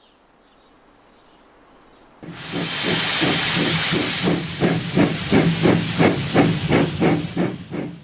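Steam locomotive sound effect: a loud hiss of steam starts about two seconds in, then the engine chuffs evenly at about three puffs a second under the hiss.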